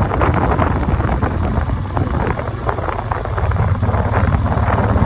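Strong blizzard wind buffeting the microphone: a loud, unbroken rumble with rough, gusting noise over it.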